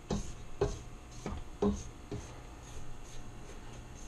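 KitchenAid stand mixer running on low speed with a dough hook, kneading a wet breadstick dough: a steady low motor hum with soft knocks about twice a second as the hook turns the dough around the steel bowl.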